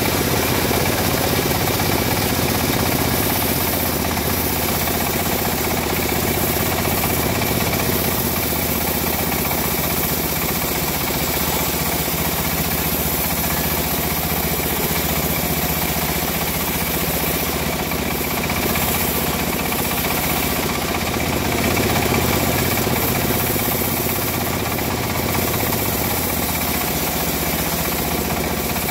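A saw's engine running steadily at an even speed, a continuous mechanical drone with no revving.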